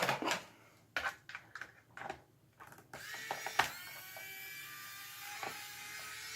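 A few clicks and taps of plastic and tool being handled, then about three seconds in a small electric screwdriver motor spins up with a brief rising whine and runs steadily, backing out a screw from the plastic remote-control case.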